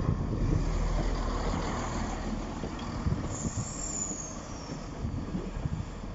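A heavy vehicle's engine rumbling steadily, with a brief high-pitched brake squeal that falls slightly, about three seconds in.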